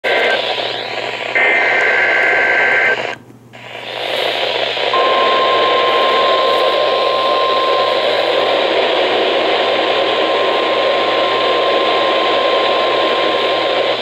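RadioShack NOAA weather radio receiver sounding an EAS weekly test over heavy static hiss. A warbling two-tone digital header burst comes first. After a brief gap, a steady 1050 Hz alert tone starts about five seconds in and holds to the end.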